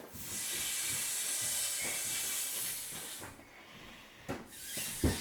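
Air hissing through the valve of an inflatable vinyl pool toy: a steady rush lasting about three seconds that then fades, followed by a couple of short puffs near the end.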